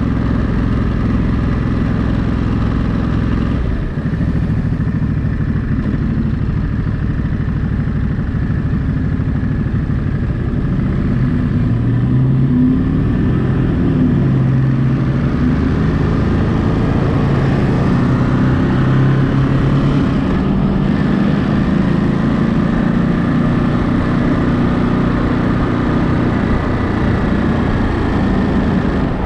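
Ducati Monster 937's 937 cc L-twin engine running low and steady at first, then rising in pitch as it accelerates about ten seconds in, with road and wind noise.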